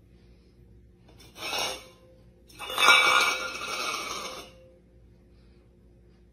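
Domestic cat hissing twice, a short hiss and then a longer, louder one, a defensive warning from a frightened cat with its back arched.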